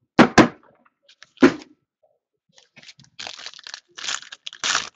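A few sharp knocks in the first second and a half, then a foil trading-card pack being torn open, its wrapper crinkling in short bursts.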